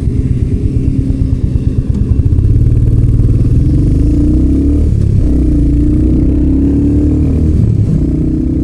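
Motorcycle engine with a pulsing beat at low revs, then pulling away about two seconds in. Its pitch climbs, drops back around the middle and again near the end, as with gear changes.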